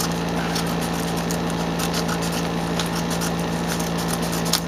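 Steady drone and hum of a noisy room air conditioner, with a few short snips and crinkles as nursing scissors cut through a plastic mailer.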